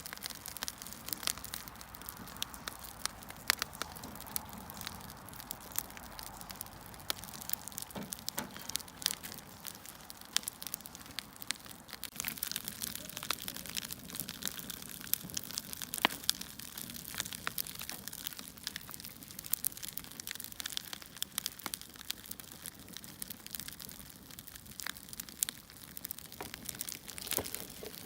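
Firewood burning: irregular sharp crackles and pops, several a second, over a steady soft hiss of the fire.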